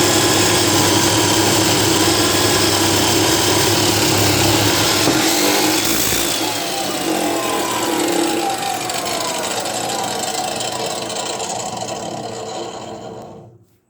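BestCraft EC553P chop saw running with its 355 mm abrasive cut-off disc, a loud steady grinding noise as it cuts metal. About six seconds in, the pitch starts falling as the motor winds down, and the sound cuts off abruptly near the end.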